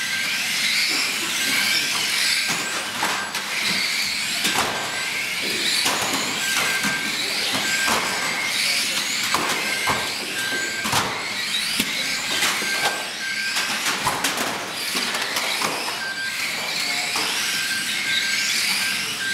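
A pack of 1/12th-scale electric radio-controlled stock cars racing, their motors whining and rising and falling in pitch as they accelerate and slow, with frequent sharp knocks from cars hitting each other and the barriers. A short high beep recurs every second or two.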